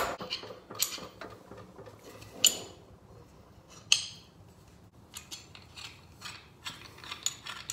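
A wrench clinking against a metal fitting as it is worked loose from a clutch slave cylinder. Scattered light taps, with two sharper clinks about two and a half and four seconds in, then a run of small ticks near the end.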